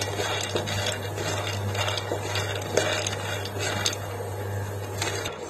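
Wooden spatula stirring whole almonds in a dry nonstick pan as they roast: scattered clicks and scrapes of nuts and spatula on the pan. Underneath is a steady low hum that cuts off near the end.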